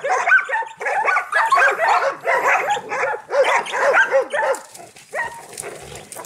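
Hog-hunting dogs barking rapidly and excitedly at a bayed wild pig. The barking stops about four and a half seconds in, leaving quieter scuffling in the brush.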